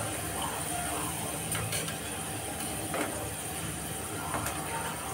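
Battered potato fries sizzling in hot oil in a deep pan, with a few sharp metal clinks and scrapes as a skimmer stirs them against the pan.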